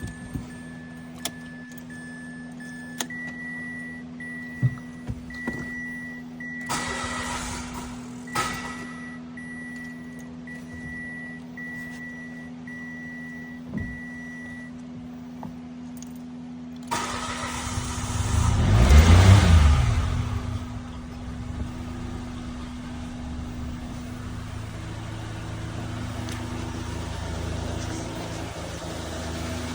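A repeating electronic beep sounds for about the first fifteen seconds. About 17 s in, the car engine cranks and catches on a jump pack, with a brief rev as it fires, then settles into a steady idle.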